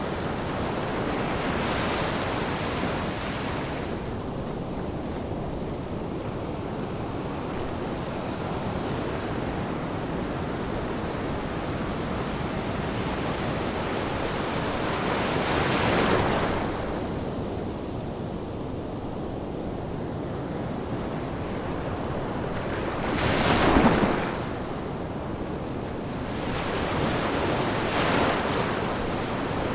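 Ocean surf: a steady wash of waves with breakers swelling up at intervals, the loudest about three-quarters of the way through, with some wind on the microphone.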